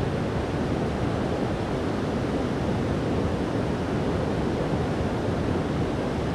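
Creek water rushing, a steady even noise.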